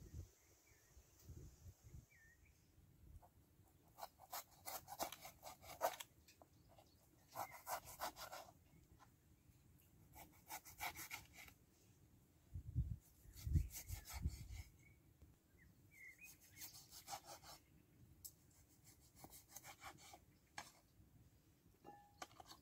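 A knife sawing back and forth through oxtail on a wooden cutting board, in short bursts of fast scraping strokes, with a few dull knocks on the board near the middle.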